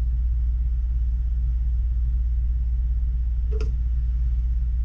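Steady low rumble with no change, and a single short knock or click about three and a half seconds in.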